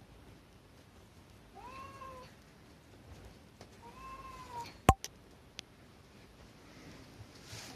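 A cat meows twice, two short calls that rise and fall in pitch, about two seconds apart. A sharp click follows the second meow, the loudest sound here, with a couple of fainter ticks after it.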